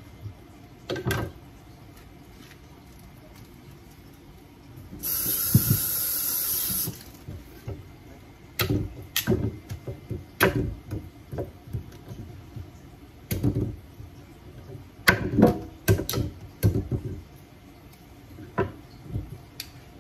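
Kitchen knife cutting through a raw squash and knocking against a wooden cutting board: a series of irregular knocks, bunched more closely about fifteen seconds in. About five seconds in, a loud steady hiss starts abruptly, lasts about two seconds and stops.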